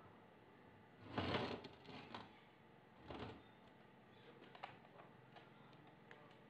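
A small welded steel plate handled and set down on the welding bench: a few short scrapes and knocks, the loudest about a second in, between quiet stretches.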